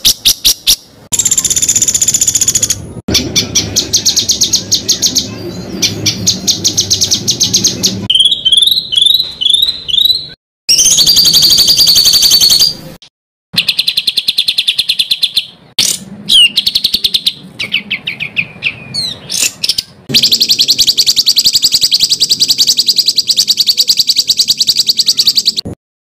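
A songbird singing a masteran tutor song of harsh, fast rolling trills and rattling phrases, broken by a run of rising whistled notes about a third of the way in. A long dense trill starts late and cuts off abruptly just before the end.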